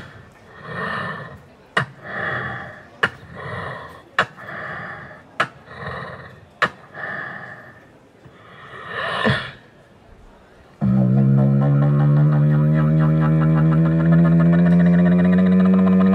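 Solo beatboxing into a cupped microphone, all made by mouth with no effects: a slow beat of sharp snare-like clicks about every 1.2 seconds, with swelling synth-like vocal tones between them. About eleven seconds in it cuts suddenly to a loud, steady, buzzing bass drone.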